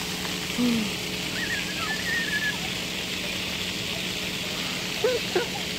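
Steady outdoor hiss with a low steady hum, and a few short high-pitched cries from young children: one just under a second in, a wavering one at about two seconds, and a couple more near the end.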